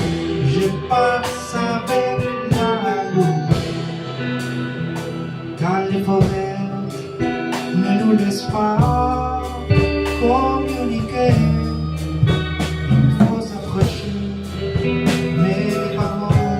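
Live progressive rock/jazz fusion band playing an instrumental passage: drum kit, keyboards and a lead melody with sliding notes. A low bass line comes in about halfway through.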